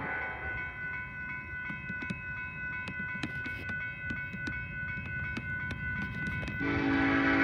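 Railroad crossing bell ringing steadily over the low rumble of an approaching diesel locomotive. About six and a half seconds in, the locomotive's horn sounds again, loud.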